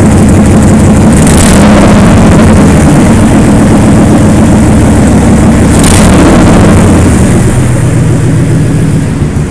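Car engine running loud with a bad exhaust leak, a rapid pulsing rasp from the exhaust, with two brief hisses and the engine speed easing down a little near the end.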